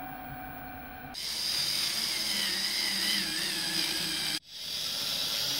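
Milling machine motor running steadily, then, about a second in, a drill bit cutting into the mini lathe's tailstock casting with a high, wavering whine, drilling the holes for its set screws. The sound breaks off for an instant near the end and picks up again.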